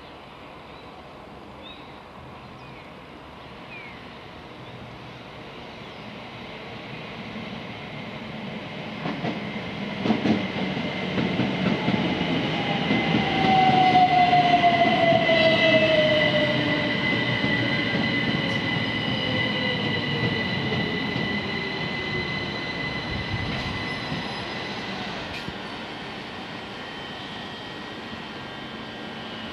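First Capital Connect electric multiple unit passing along the platform, growing louder as it approaches and fading as it goes. A whine falls in pitch through the loudest part, about halfway through, and a steady high squeal from the wheels carries on to the end.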